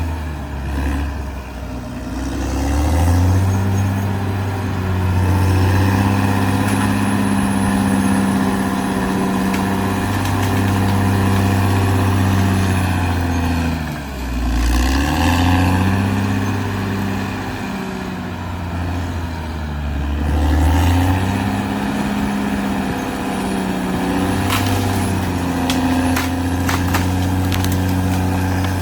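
Caterpillar D6R XL bulldozer's diesel engine running hard while working. Its pitch drops and comes back up about a second in, about halfway through, and again a few seconds later. A few sharp clanks come near the end.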